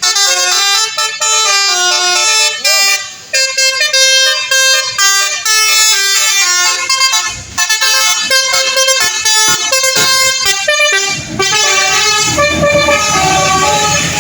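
Bus telolet horn, a multi-tone musical horn, playing a quick tune of stepped notes. Near the end the low rumble of a passing vehicle's engine rises under it.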